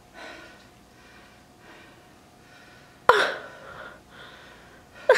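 A person's voice: one sudden, sharp gasp- or hiccup-like vocal burst about three seconds in, falling in pitch as it dies away, with only faint sounds before it.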